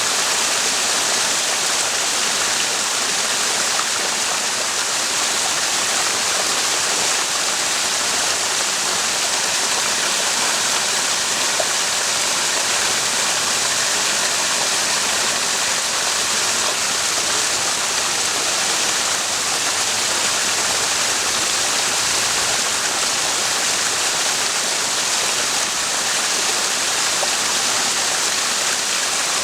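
Mountain spring water running over rocks: a steady, even rush of flowing water.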